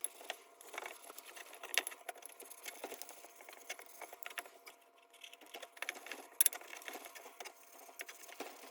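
Scrubbing and scraping on the old lantern's metal rim during cleaning, with irregular light clinks and ticks of metal; the sharpest come a little under two seconds in and again past six seconds.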